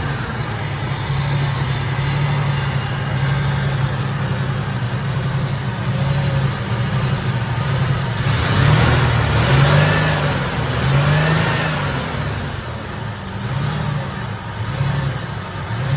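A Ford F-150's 4.2L V6 engine running steadily, then revved several times in the second half, its pitch rising and falling with each rev.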